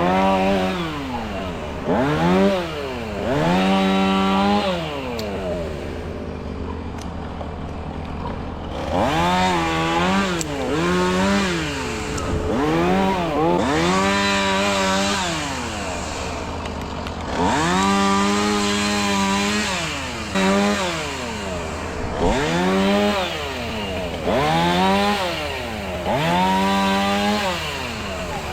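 Chainsaw engine revving up to full throttle and dropping back to idle a dozen or so times, each burst held one to two seconds, with a steady idle between.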